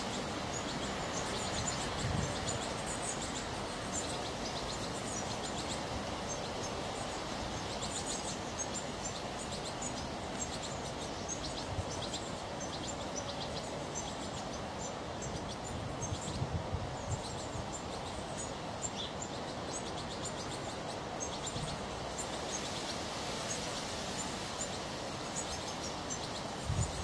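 European goldfinches chirping: many short, high twittering calls scattered throughout, over a steady outdoor background hiss, with a few low bumps.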